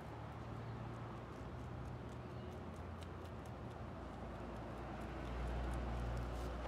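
Steady low rumble of outdoor background noise that grows louder about five seconds in, with faint scattered ticks.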